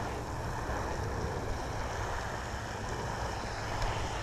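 Steady wind noise on the microphone: a low rumble under an even hiss.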